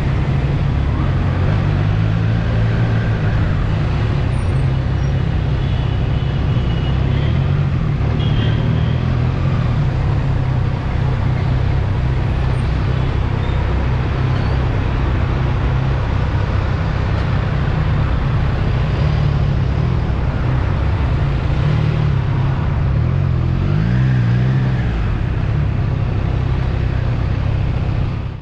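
Motorcycle engine running at a steady speed under road and wind noise, its note wavering briefly about 24 seconds in.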